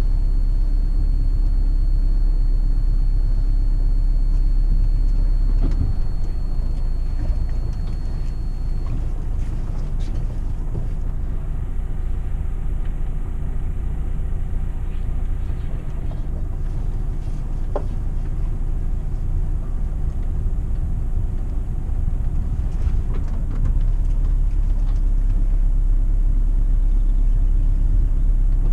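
Sailboat's inboard engine running at low speed while manoeuvring into a marina berth, a steady low drone. It eases off about six seconds in and picks up again a few seconds before the end.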